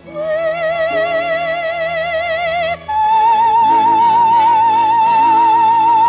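Soprano singing in operatic style, with a string ensemble accompanying. She holds one long note with vibrato, then after a brief break about three seconds in, a higher long held note.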